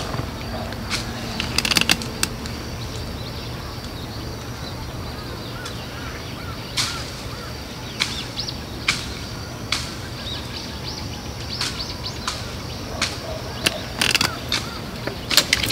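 Outdoor ambience: a steady low rumble with scattered short, sharp bird chirps and calls, several of them in the second half.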